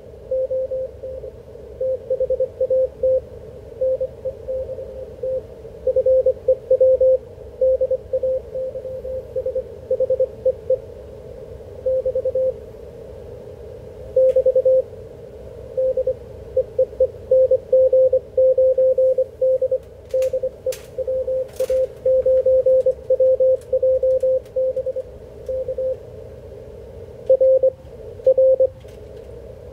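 Morse code (CW) on the HF amateur bands heard through a transceiver: a single steady-pitched tone keyed on and off in dots and dashes, with steady receiver noise underneath. A few faint clicks come about two-thirds of the way through.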